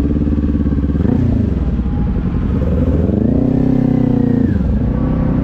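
Kawasaki sport bike's engine running as it is ridden at low speed, with a brief rise and fall in pitch about three seconds in.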